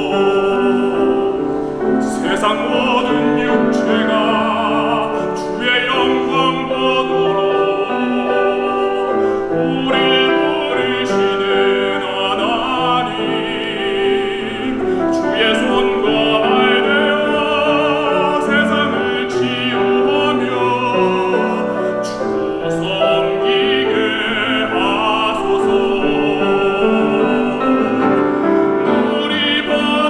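A male solo voice singing a Korean hymn with vibrato on held notes, accompanied by grand piano.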